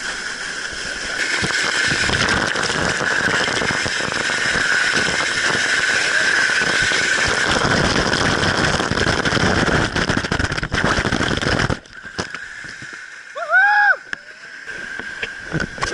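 Dirt bike running while riding a trail, a steady engine noise mixed with wind rush, which cuts off abruptly about twelve seconds in. A short voice call follows near the end.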